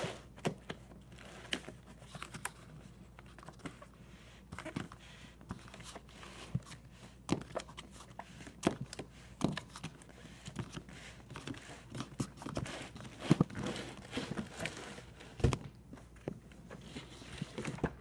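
Cardboard packaging being handled by hand: irregular rustling and scraping of cardboard boxes, broken by many sharp knocks and taps.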